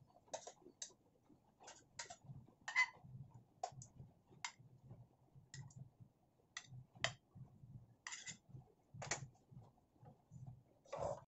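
Metal kitchen tongs clicking and tapping as pieces of marinated pork are lifted from a plate into an air fryer basket. The clicks are sharp and irregular, about one a second, a few louder than the rest.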